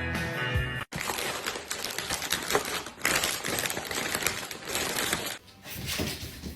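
A brief end of music, cut off about a second in, then a dense run of rapid, irregular clicking and scratching that thins out near the end.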